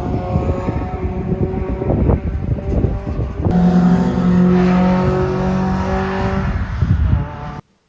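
An engine running at varying speed, its pitch stepping up and down, cutting off abruptly near the end.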